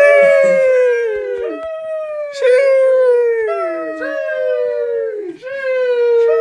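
Drawn-out 'sheeeesh' exclamations, the long high 'eee' slowly falling in pitch. Several follow one another, about one every one to two seconds, some starting with a hissy 'sh' and some overlapping.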